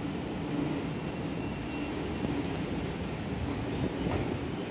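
A JR East 255 series electric train stands at the platform with a steady hum, and a faint high-pitched whine joins about a second in.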